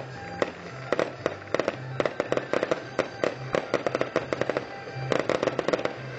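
Aerial fireworks bursting overhead: many sharp cracks and pops in quick clusters, with music playing underneath.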